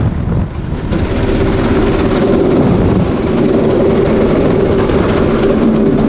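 Go-kart's Predator 212 single-cylinder four-stroke engine running steadily under way, with its loudness dipping briefly about half a second in.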